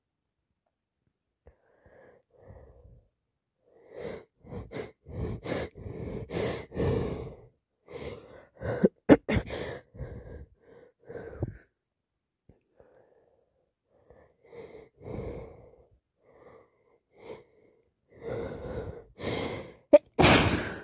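Sneeze build-up from a person with a heavy head cold: runs of short, catching breaths that grow louder, with a couple of sharp catches about nine seconds in. A second build-up ends in one loud sneeze at the very end.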